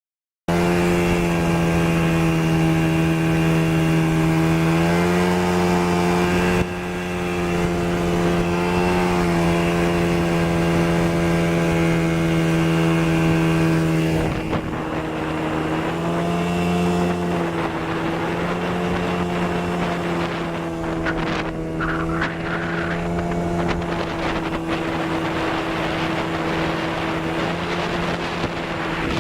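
Suzuki DT30 two-stroke outboard motor running steadily under way. Its engine note rises and falls slightly in pitch every few seconds.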